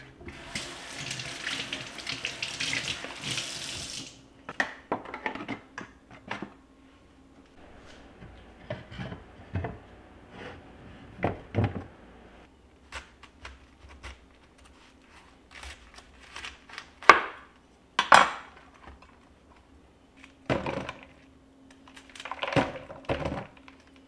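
Kitchen tap running into a stainless steel sink for a few seconds, then stopping. After it comes a long run of separate sharp knocks and clatters as wooden cutting boards are handled and stood in a wooden rack; the two loudest come a second apart past the middle.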